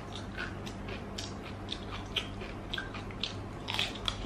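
Close-up eating sounds: chewing, lip smacks and small wet mouth clicks scattered throughout, with a denser cluster of crisp bite sounds a little before the end. A faint steady low hum runs underneath.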